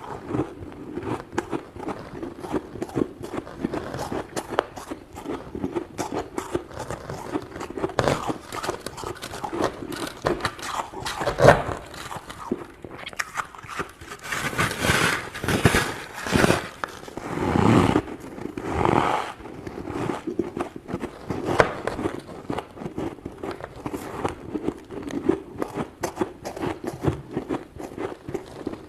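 Crunchy freezer frost, built up thick from a humidifier, being scraped off: a dense run of crackling scrapes and crunches, with louder strokes about eleven seconds in and again from about fifteen to nineteen seconds.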